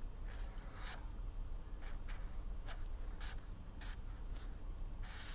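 Pen writing on a surface: a series of short scratchy strokes, roughly two a second.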